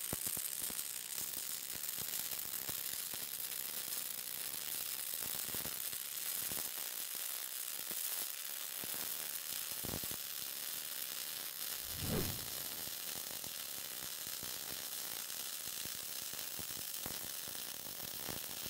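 MIG welding arc from a Lincoln Electric PowerMIG 260 laying a bead on quarter-inch carbon steel with .035 SuperArc wire at 21 volts: a steady, fast crackle over a hiss. A brief low thump about twelve seconds in.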